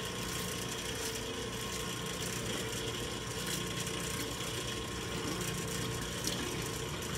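Filter King fryer oil filtration machine's 1/3 HP electric motor and pump running with a steady hum, drawing the last of the cooking oil out of the fryer vat through the suction wand.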